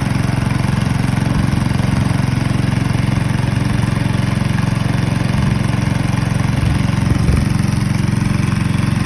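Rabeta longtail boat motor running steadily at full throttle, its throttle tied wide open.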